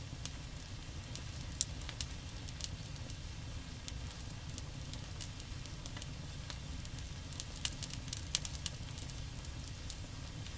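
Seasoning oil smoking on the hot steel top of a four-burner gas griddle, crackling with scattered sharp pops over a steady low rumble. The pops cluster near the start and again past the middle.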